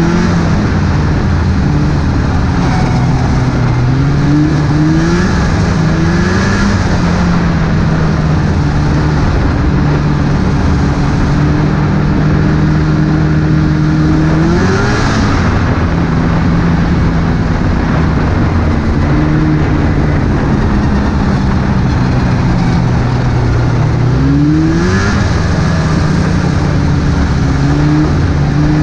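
Snowmobile engine running at trail speed, heard from on board, its pitch rising sharply several times as the throttle is opened and holding steady in between, over a steady rushing noise.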